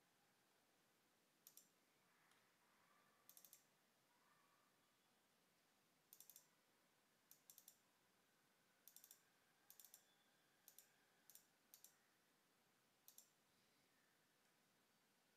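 Faint computer mouse button clicks, many of them quick double-clicks, in about a dozen short groups over near-silent room tone.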